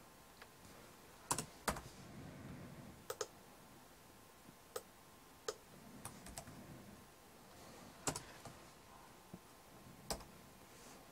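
Computer keyboard keys and mouse buttons clicking while text is pasted and edited. About a dozen short, sharp clicks come at irregular intervals, some in quick pairs, with pauses between.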